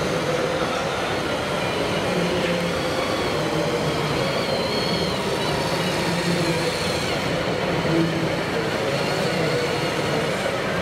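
1:8 scale radio-controlled Mercedes Rundhauber 1513 model truck driving with a load of soil: a steady mechanical hum with a thin high whine that wavers in pitch.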